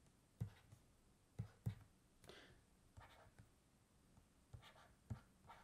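Near silence with a few faint taps and clicks of a stylus on a tablet as lines are drawn.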